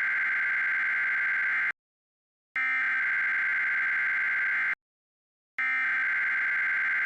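Emergency Alert System SAME header for a Child Abduction Emergency: buzzy digital data bursts, each about two seconds long, sent three times with short gaps. The header encodes the alert's type and area ahead of the attention tone.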